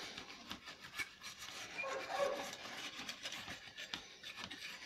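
Paintbrush bristles scrubbing a car-radio circuit board wet with solvent: a faint, irregular scratchy brushing as the brush works over the components.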